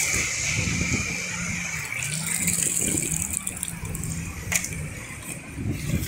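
Motorised plastic walking toy buffalo whirring and rattling in shallow seawater, with a low hum that wavers up and down in pitch, over small waves washing across the sand.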